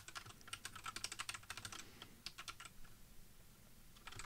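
Typing on a computer keyboard: a quick run of keystrokes for about two seconds, a few more, then a pause before more keys near the end.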